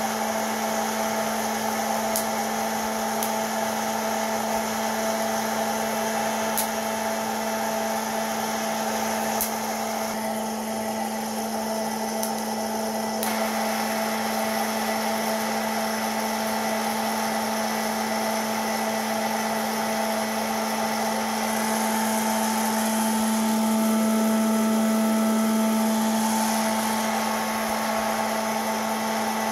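Hot-air popcorn popper running steadily, its fan and heater blowing air through roasting coffee beans, with a steady motor hum. A few sharp clicks come through in the first ten seconds.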